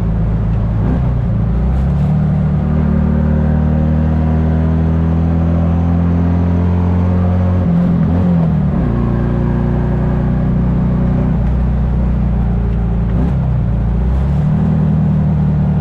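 Classic Fiat 500's air-cooled two-cylinder engine running while the car is driven, its note shifting in steps a few times as the revs change.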